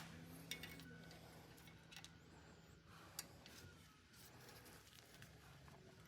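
Near silence, with a few faint clicks and taps as a new brake pad wear sensor is worked into the brake pad with a small tool.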